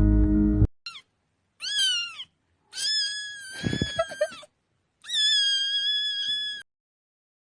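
A cat meowing four times: a brief first meow, a second that rises and falls, then two longer drawn-out meows.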